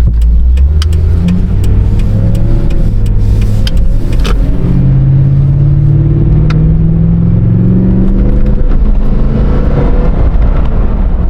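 Toyota Tundra's 4.6-litre V8 pulling under acceleration while driving. The engine note climbs steadily from about four seconds in, then eases off near the end, over a constant road rumble.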